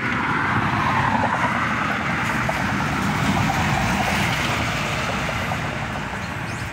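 Engine noise, steady, with a pitch that sinks over the first second or two and eases off slightly near the end.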